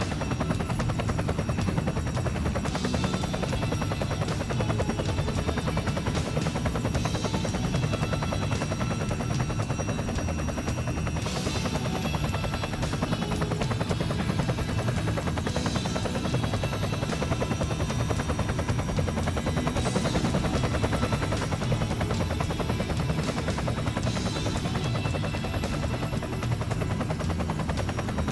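Walkera Dragonfly 4F200LM small electric RC helicopter running steadily in flight: a fast, even rotor chop with a thin, high electric motor whine over it.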